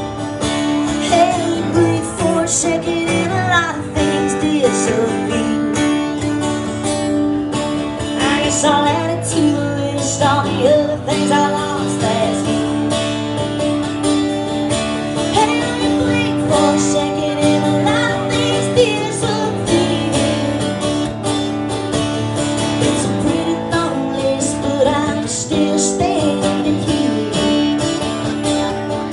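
Two acoustic guitars playing an instrumental break in a country song, steady strummed chords with melodic lines that bend in pitch over them.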